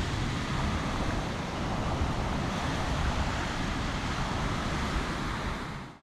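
Ocean swell surging and washing over sandstone rock ledges, with wind rumbling on the microphone; the sound fades out near the end.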